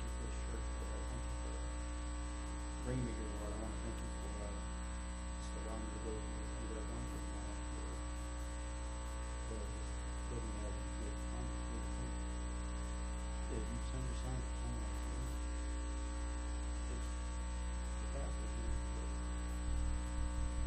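Steady electrical mains hum with a stack of constant buzzing tones. Under it, a faint, indistinct voice quietly prays now and then.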